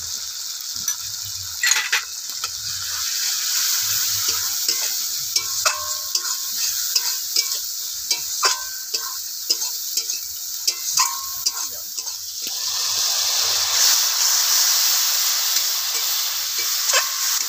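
Onion-tomato masala with turmeric sizzling in hot mustard oil in a large metal kadai while a metal spatula stirs and scrapes it, with sharp clinks of the spatula against the pan. The sizzle swells louder for a couple of seconds about two-thirds of the way through.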